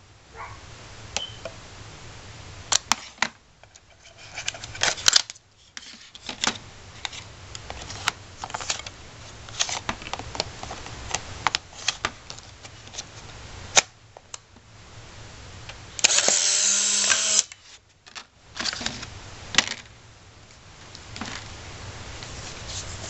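Clicks and plastic handling knocks as a Polaroid SX-70 Alpha 1 is loaded with a film pack. About two-thirds of the way through, the camera's film-ejection motor whirs loudly for about a second and a half, then stops abruptly. This is typical of the dark slide being pushed out after the film door is closed.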